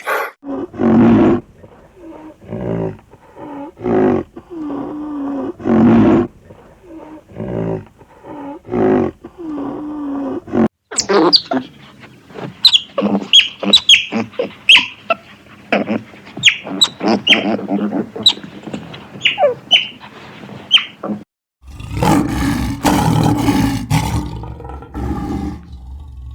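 Animal calls in three separate clips. First come short, pitched calls repeated about once a second. After a cut, a dense run of quick, sharp squeaking calls follows. A final louder, noisy burst lasts a couple of seconds.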